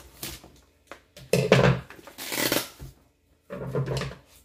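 Packing tape being cut and torn open on a cardboard shipping box, with the cardboard scraping and rustling in three short bursts.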